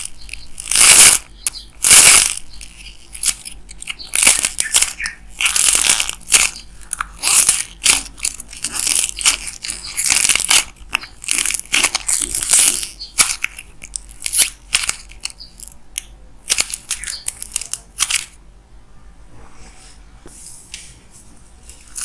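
A clay ball crushed and broken apart by hand, the clay crackling and crunching. There are three loud cracks in the first two seconds, then a dense run of crackling and crumbling until the last few seconds, when it goes faint.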